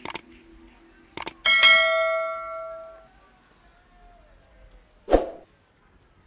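A short metallic clink twice, then a struck metal ringing with several clear tones that dies away over about a second and a half, and a single sharp knock near the end.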